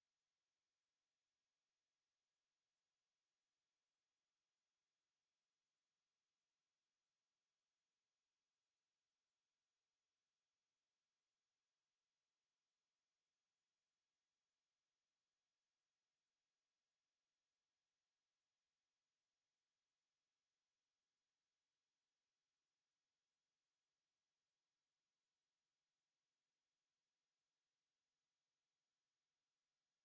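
Steady 10,482 Hz sine-wave test tone, one pure high-pitched whistle held at a constant level, used to test and clear dust and water from a speaker.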